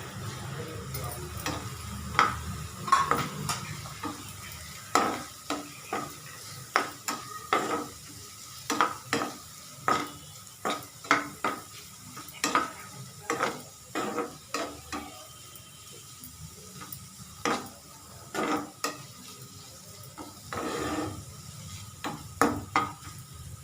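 A metal spoon stirring and scraping a frying vegetable-and-chicken filling in a pan, knocking against the pan about once or twice a second with a short metallic ring, over a faint sizzle.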